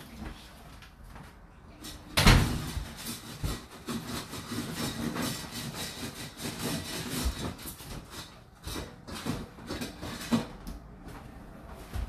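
Whirlpool dishwasher in its 65 °C main wash, running with water spraying inside the tub. About two seconds in there is a loud thump, followed by irregular knocking and clatter for several seconds before it settles.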